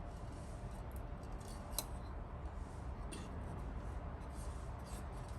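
Faint handling and scraping of small parts, with one sharp click about two seconds in, over a low steady hum.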